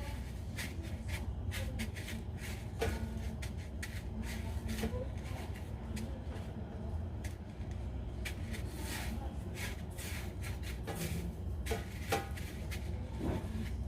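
Hands tossing and pressing a potato croquette in a bowl of panko breadcrumbs: dry crumbs rustling and crackling in many short, irregular scrapes over a steady low hum.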